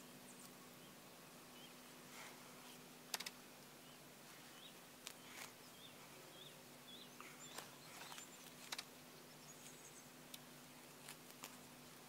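Quiet background with scattered light clicks and rustles as hands handle wooden snap traps with wire springs in the grass; the sharpest click comes about three seconds in.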